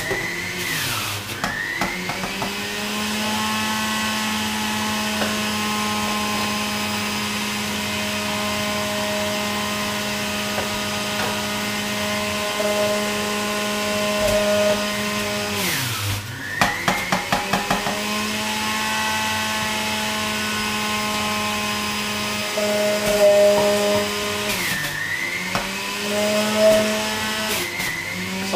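Electric centrifugal juicer running with a steady motor whine. Its pitch sags and recovers three times, about a second in, around halfway and near the end, as produce is pressed down the feed chute onto the spinning cutter, with a quick rattle of chopping just after the middle dip.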